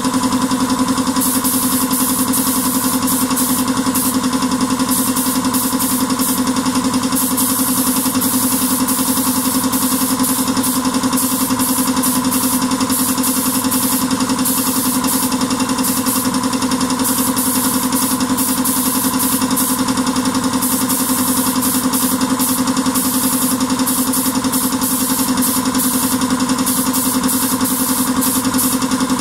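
Steady machine hum throughout, with the hiss of a compressed-air spray gun starting and stopping in short passes as it lays on clear topcoat.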